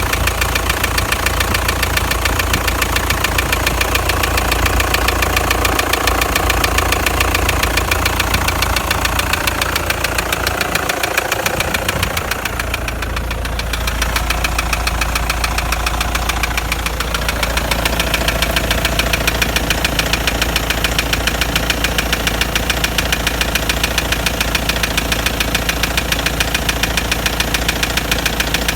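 Toyota 1KD-FTV 3.0-litre four-cylinder turbodiesel running with a steady, rhythmic knock, and a brief dip in level near the middle. The knock remained after the injectors were replaced; mechanics placed it at the top of the engine or blamed scoring in the third cylinder, and its cause is not yet found.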